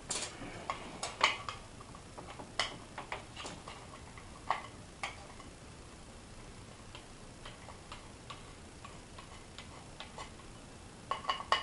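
Screwdriver turning screws out of a copy machine's scanner assembly: irregular small clicks and taps of tool and metal, sparse through the middle, with a quick cluster of clicks near the end.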